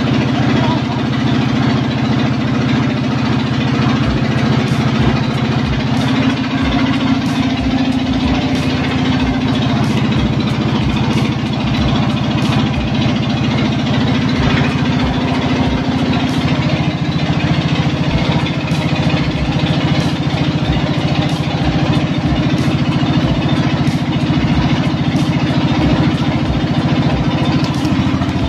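A small engine running steadily at idle, its pitch dipping slightly a couple of times, with scattered light clicks.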